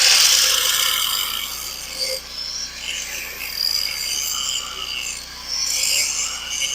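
Angle grinder grinding into the steel of a scraper to cut out a stress crack, a steady high grinding hiss with a wavering whine as the load changes.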